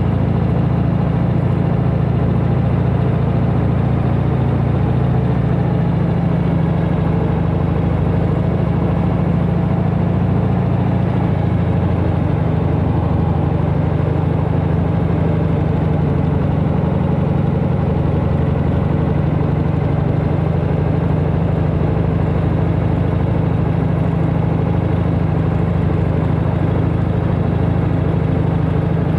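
1992 Harley-Davidson Heritage Softail Classic's Evolution V-twin engine running steadily on the move, its note shifting slightly a couple of times.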